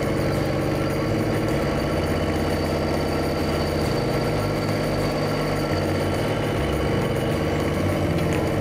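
Dynapac CC950 ride-on double-drum road roller's engine running steadily as the roller drives along the pavement.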